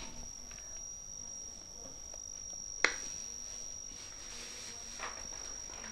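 Knife cutting through ripe papaya slices onto a tabletop: one sharp click about halfway through and faint soft cutting sounds, over a steady high-pitched whine.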